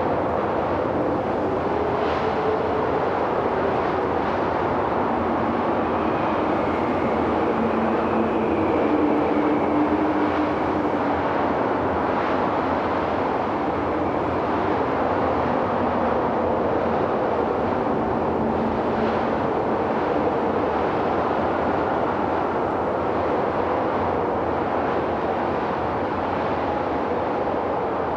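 Strong wind blowing steadily, with a howl that rises and falls in pitch.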